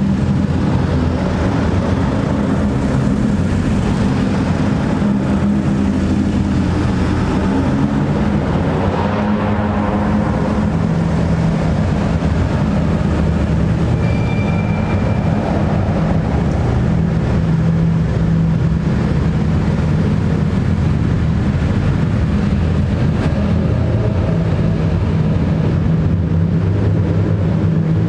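Engines and exhausts of a line of modified cars rolling slowly past one after another in an underground parking garage, a steady low drone.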